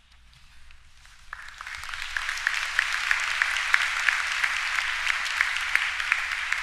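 Audience applauding: the clapping builds over the first two seconds, then holds steady as dense hand claps.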